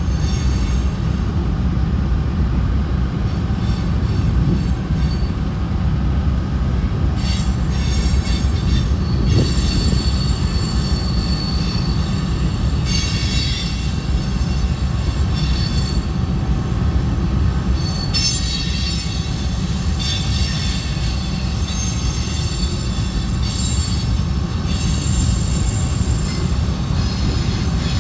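Freight train of covered hopper cars rolling past with a steady low rumble. The wheels squeal on and off in high, thin tones from about seven seconds in.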